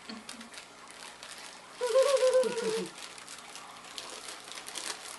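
Plastic packaging crinkling faintly as a pack of socks is handled and opened. About two seconds in there is a short, high voice-like sound lasting about a second, its pitch falling at the end.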